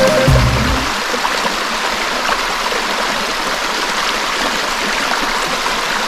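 Shallow rocky creek running steadily over stones, an even rush of water.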